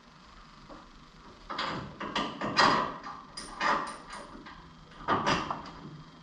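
A string of metal clunks and scrapes, five or six in a few seconds with the loudest in the middle, as a bolt and nut are worked into a control-arm bracket by hand and tool.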